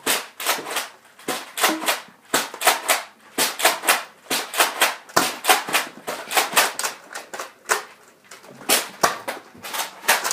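Nerf blaster fire: a rapid, irregular run of sharp plastic clacks as foam darts are fired and strike the camera and surfaces, about three a second.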